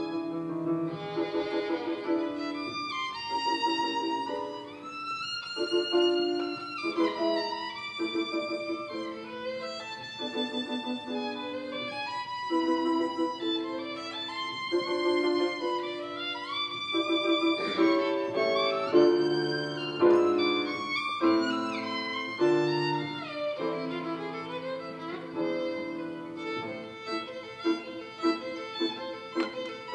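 Violin bowed, playing a melody of quickly changing notes mixed with some held notes.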